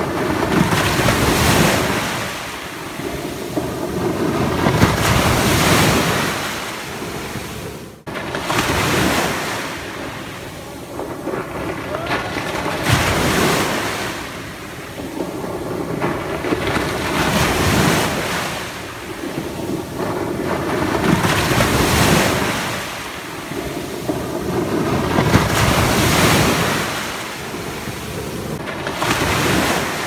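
Sea waves breaking on a beach, a surge every four seconds or so, each swelling and then washing back.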